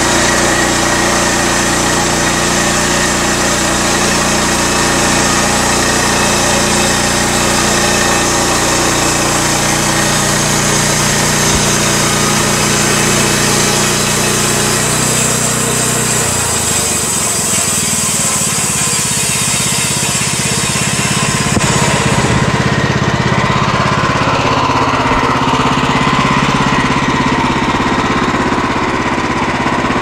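Petrol engine of a Pascal Metal portable band sawmill running steadily under load as the band blade cuts lengthwise through a log. Its low note shifts about halfway through, when the blade comes out at the end of the log.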